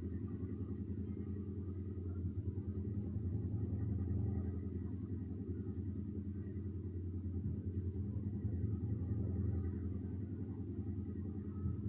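Steady low rumbling hum that stays even, with no clear events in it.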